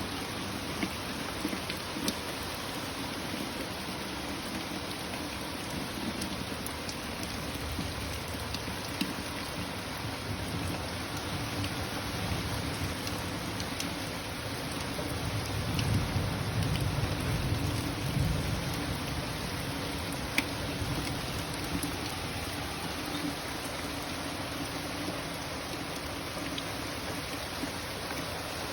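Steady summer rain falling, with a continuous hiss and scattered individual drops ticking. About halfway through, a low rumble swells for a few seconds and fades.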